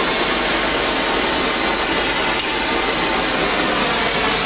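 Harris 50-3 oxy-acetylene welding torch flame burning at full gas with a loud, steady hiss.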